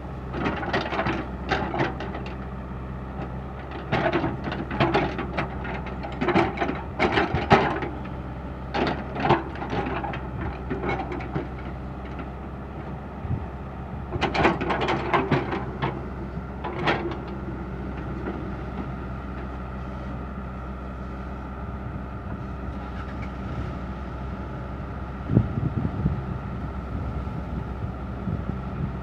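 Komatsu PC60-5 excavator engine running steadily under load. Over the first half it is broken by clusters of sharp knocks and scraping from the bucket working hard soil, then settles to a steadier drone with a held whine, with a single thump near the end.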